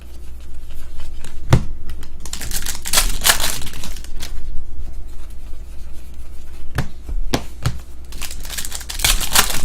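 Trading-card pack wrappers being torn open and crinkled, in two stretches of rustling a few seconds apart, with a few short knocks in between.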